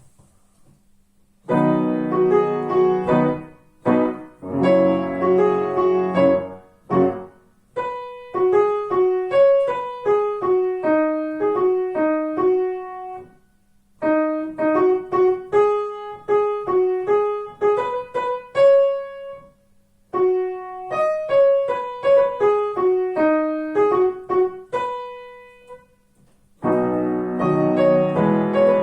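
Piano playing a song in short phrases with brief pauses between them. It opens with full chords about a second and a half in, moves to lighter melody lines, and returns to full chords near the end. A faint steady hum runs underneath.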